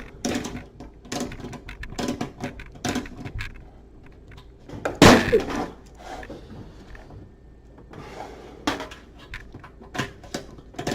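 Irregular metal knocks and clatter from oven parts being handled, with one loud clank about five seconds in.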